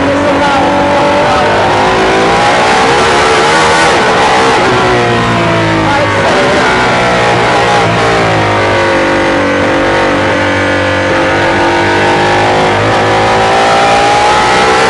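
Aston Martin Valkyrie's 6.5-litre naturally aspirated V12 heard from inside the cabin. It revs hard and its pitch rises and falls several times as the car accelerates, shifts and slows for corners.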